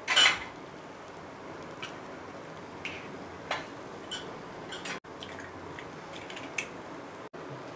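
Eggs being cracked into a hot pan of shredded parotta: a few light, scattered clicks and taps of shell and fingers over a faint, steady frying hiss from the pan.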